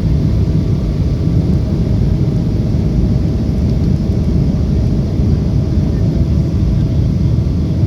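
Steady low rumble of a jet airliner's engines and rushing air, heard from inside the passenger cabin, with a faint steady hum above it.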